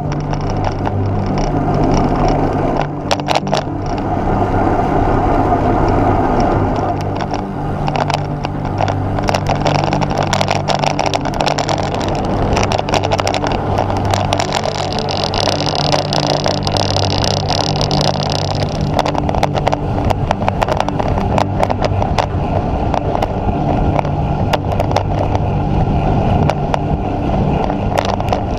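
Wind rushing over a bike-mounted camera's microphone while riding a road bike at speed, with steady tyre hum on tarmac and frequent rattling clicks from the road surface.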